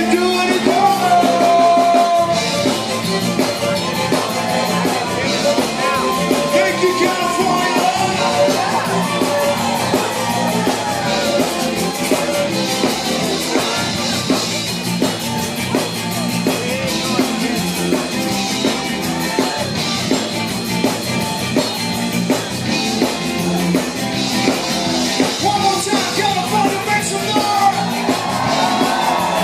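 Live festival band music: a singer over drums and instruments with a steady dance beat.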